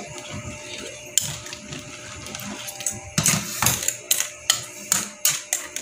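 Metal spatula clanking and scraping against an aluminium wok while stirring crabs in coconut milk: sharp knocks, a few early and then several in quick succession in the second half.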